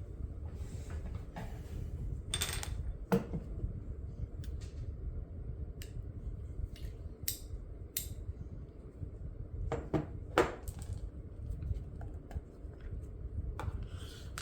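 Scattered small clicks and taps of objects being handled, the sharpest about two and a half, three and ten seconds in, over a low steady rumble.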